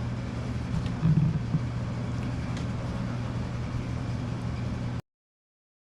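Steady low mechanical hum, with a brief louder swell about a second in; the sound cuts off abruptly about five seconds in.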